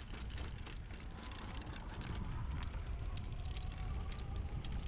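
Electric bike riding over a bumpy grass trail: wind rumbling on the microphone and tyres rolling, with many small clicks and rattles from the bike. A faint electric motor whine comes in about a second and a half in.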